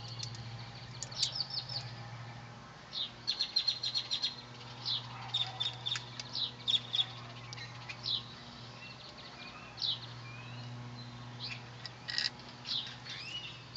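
Small birds chirping and calling throughout, in short high chirps, quick trills and brief gliding notes, over a steady low hum.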